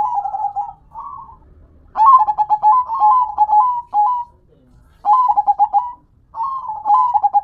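Zebra dove (perkutut) cooing in rapid, staccato phrases of quick-fire notes. There are short phrases at the start, a long phrase about two seconds in, and further phrases around five and seven seconds.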